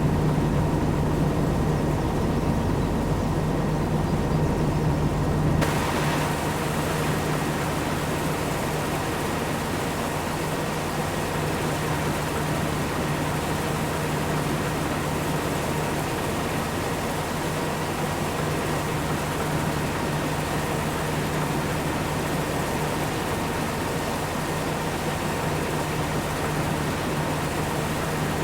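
Heavy farm machinery engine running steadily with a constant hum. About six seconds in the sound changes abruptly to a lighter rumble with much more hiss, and then stays steady.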